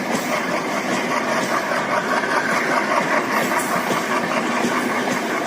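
A train's steady mechanical running noise, even and unbroken.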